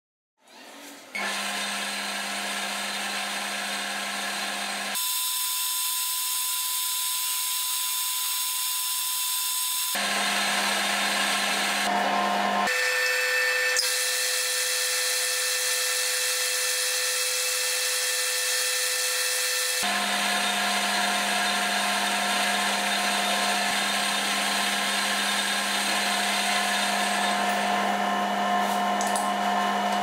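Metal lathe running with a strip of sandpaper held against the small metal pen part spinning in its chuck: a steady motor whine with the hiss of the abrasive. It starts about a second in, and its pitch and tone change abruptly four times.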